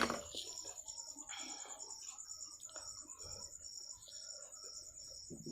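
Crickets chirping in a steady, evenly pulsed rhythm, under faint soft sounds of noodles being handled and eaten by hand, with one sharp click at the very start.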